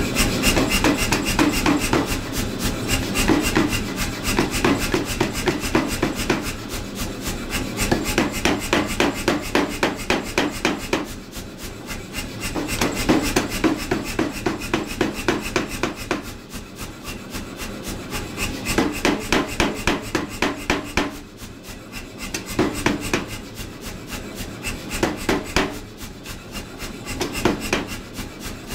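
Power hammer striking a hot leaf-spring bar in fast, even blows, in runs of a few seconds with short pauses between, drawing out the tangs.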